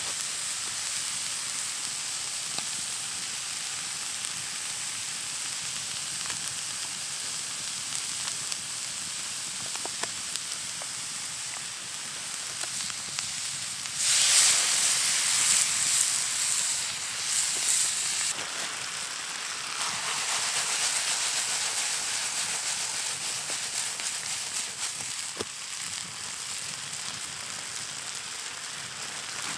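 Diced wild turkey meat sizzling in a frying pan over an open campfire, with a few sharp crackles from the fire. About fourteen seconds in, the sizzle gets louder for about four seconds as seasoning goes in and the meat is stirred, and it rises again briefly about twenty seconds in.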